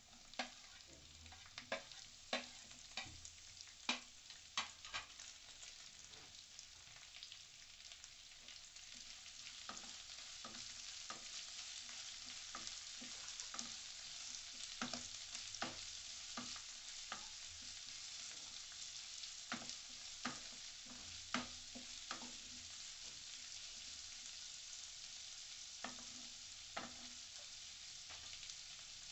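Sliced onions sizzling in hot mustard oil with cumin, ginger, garlic and green chillies, stirred with a wooden spatula that clacks against the pan. The sizzle grows louder over the first ten seconds or so.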